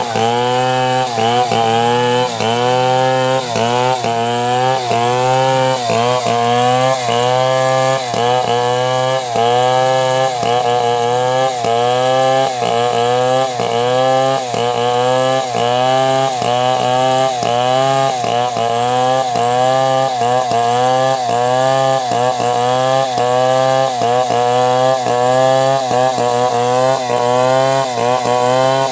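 Two-stroke chainsaw cutting lengthwise through a log to make boards, running at high revs without a break. Its pitch sags under the load and picks up again in a steady rhythm, a little more than once a second, as the saw is worked through the wood.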